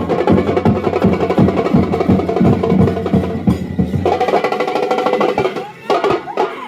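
Fan percussion band of bass drums, snare drums and a large steel drum playing a fast, steady beat. About four seconds in, the low drum beat drops out under a held, pitched note for a couple of seconds, then the drumming comes back in near the end.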